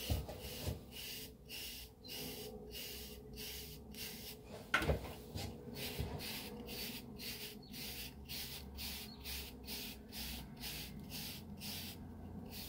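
Soft wave brush strokes through short, cream-moisturized 360-wave hair: a steady rhythmic bristle rubbing at about two to three strokes a second. A single knock stands out about five seconds in.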